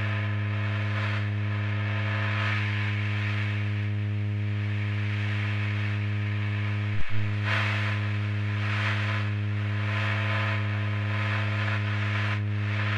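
A steady low droning hum with a stack of even overtones, the background drone of a mock emergency alert broadcast, with soft swells of hiss drifting over it. A single sharp click comes about seven seconds in.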